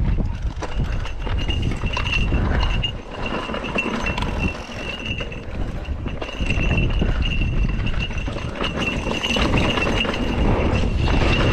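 Mountain bike descending a rocky gravel trail: tyres crunching and rattling over loose stones and rock, the frame and parts knocking, with a steady high buzz running through it.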